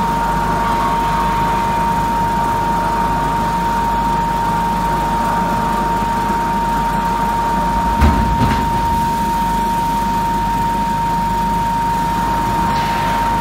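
Wood log feeding conveyor running, a steady mechanical hum with a high steady whine over it. About eight seconds in there is a single knock as the log rolls off the feeding table into the foot of the inclined conveyor.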